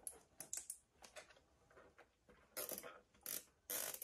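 Plastic zip ties being pulled tight around a water pipe: a few faint ratcheting clicks, then three short rasping pulls in the last second and a half.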